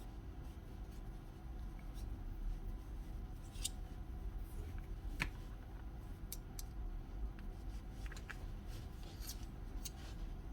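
Scattered light clicks and taps of small hammer parts being handled during reassembly, over a low steady hum.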